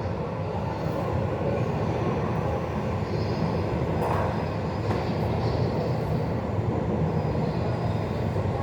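New Seoul Subway Line 1 electric train at the station platform, a steady rumble with a faint high whine that comes and goes.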